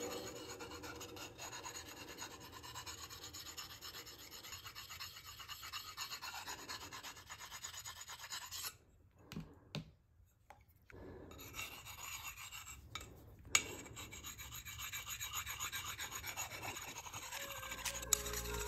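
Small handheld Japanese whetstone rubbed quickly back and forth along the steel of a bench chisel, a rapid scraping as the edge is sharpened. The strokes stop for about two seconds midway, and there is a single sharp tap a few seconds later.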